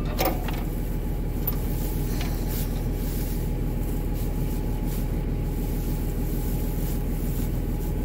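Massey Ferguson 7495 tractor's six-cylinder diesel engine running steadily, with a few faint clicks in the first couple of seconds.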